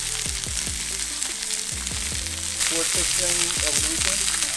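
Blackened blackfin tuna fillets sizzling in hot oil in a stainless steel pan: a steady, high frying sizzle from a hard sear over high heat.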